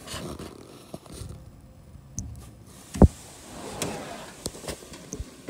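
Handling noise from a camera rubbing and knocking against the aluminium structure inside a Cessna wing, with one sharp knock about three seconds in.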